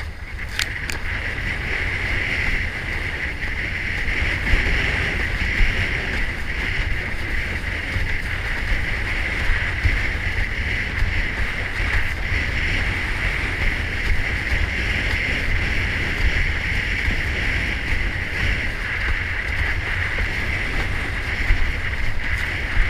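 Wind buffeting an action camera's microphone and water rushing past a windsurf board sailing through choppy water: a steady rush with a deep rumble beneath it.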